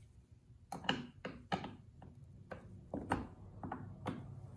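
A metal T-handle wrench handled against a chainsaw's housing: a string of about nine sharp, irregularly spaced clicks and taps.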